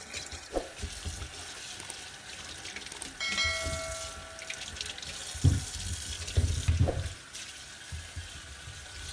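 Tap water running into a stainless steel sink as potatoes are rubbed clean by hand, with a few dull thumps around the middle. A bell-like chime sound effect rings for about a second and a half a few seconds in.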